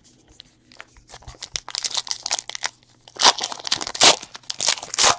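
Foil wrapper of a trading-card pack crinkling and tearing as it is ripped open: a quick run of crackles that builds after about a second and is loudest near the end.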